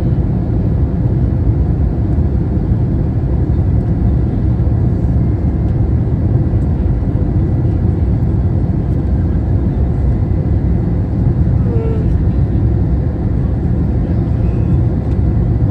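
Steady airliner cabin noise heard from inside the cabin on the landing approach: engines and rushing air making an even low rush, with a faint thin whine above it.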